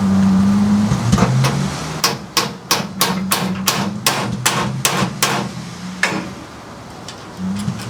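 A run of about a dozen sharp, evenly spaced hammer-like knocks at roughly three a second, then one more knock a second later, over a steady low hum.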